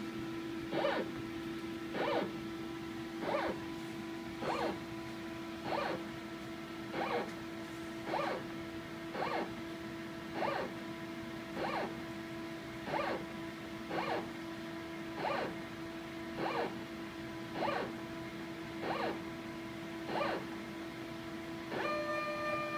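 Motorized scanning stage stepping a needle hydrophone through an ultrasound transducer's field. It makes a short mechanical whir about every 1.2 seconds over a steady electrical hum. Near the end a set of higher steady tones comes in.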